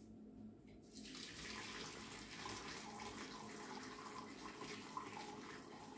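Turmeric dye bath being poured through a sieve and straining cloth into a pot: a steady stream of liquid splashing, starting about a second in.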